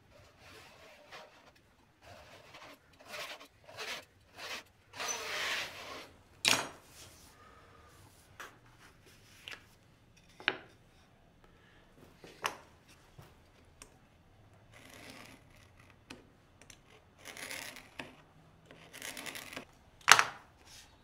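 Hand-working thin wood veneer on a bench: a series of short scraping swipes of a knife drawn through the veneer and tearing of painter's tape, with scattered sharp clicks as small tools are handled and set down. The loudest click comes near the end.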